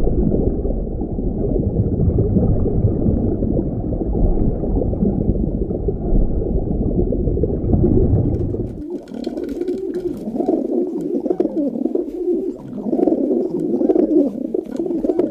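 Pigeons cooing: low, wavering coos that become clear about nine seconds in. Before that comes a dense low rumbling sound that ends abruptly.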